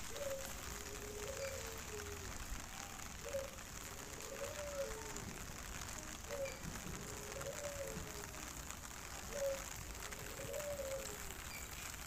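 A dove cooing over and over, a short low gliding phrase repeating every second or two, over a faint steady hiss.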